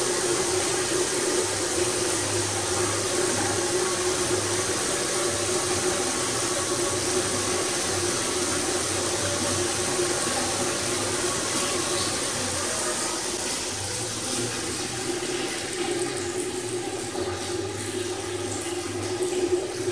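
Steady whirring of a bicycle spinning on a home trainer that drives a pedal-powered generator, with the machines it powers running, and water pouring from a tilted kettle into a bucket.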